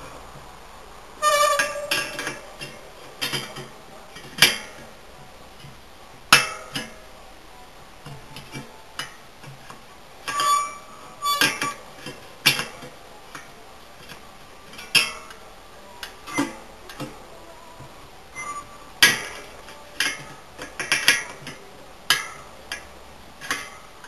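Irregular metallic clicks and clinks of a spoke wrench turning the spoke nipples on a bicycle wheel in a truing stand, with some strikes ringing briefly as the spokes ping.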